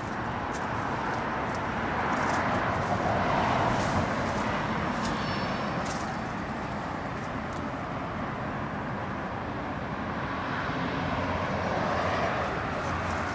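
Road traffic: the hiss of passing cars, swelling and fading twice, about three seconds in and again near the end.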